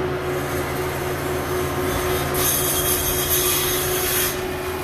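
A heavy diesel machine's engine runs steadily underneath. From about two seconds in, a rough scraping hiss lasts about two seconds.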